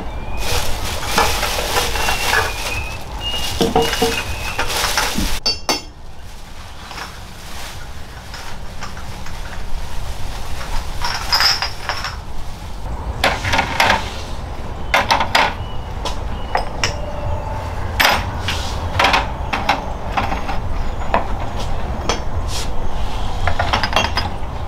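Pots, dishes and utensils knocking and clinking at irregular intervals, some clinks ringing briefly, over a steady low rumble.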